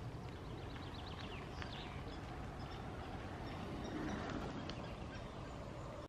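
Wild birds singing: a quick run of about seven short high notes in the first second and a half, then scattered chirps, over a faint outdoor hiss.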